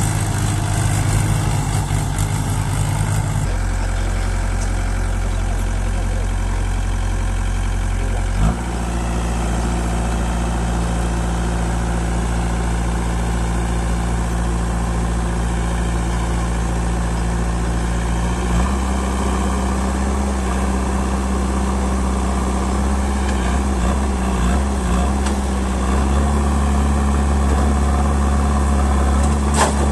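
Diesel engine of a tractor or backhoe loader running steadily at a low, even pitch. Its note changes suddenly a few times: a few seconds in, again with a click about a third of the way through, and twice more later.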